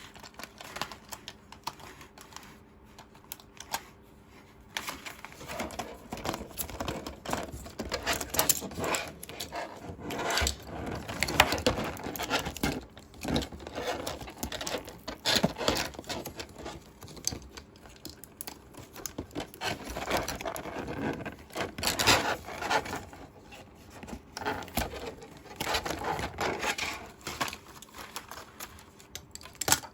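Hands unboxing and handling a miniature toy playset: plastic packaging crinkling and scraping, with irregular light clicks and taps of small plastic pieces. The sounds grow busier about five seconds in.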